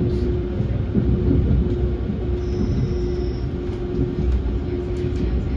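S-Bahn commuter train running: a steady low rumble with a steady hum, and a faint high whine for about a second partway through.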